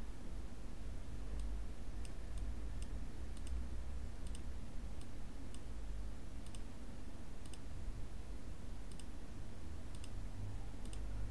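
Computer mouse clicking: short, sharp single clicks at uneven spacing, about one or two a second, over a steady low hum.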